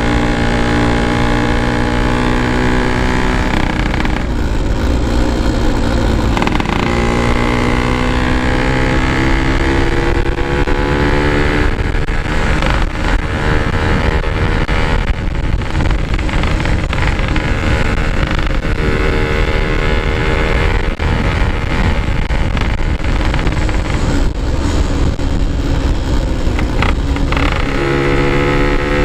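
Yamaha RX-King two-stroke single-cylinder motorcycle engine running under way through a packed standard-style exhaust. The engine note climbs and drops several times, with short breaks where the throttle is let off or gears change.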